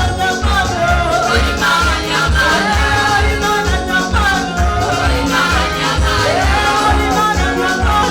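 Gospel praise-and-worship music: singing over a band with a steady, driving bass beat.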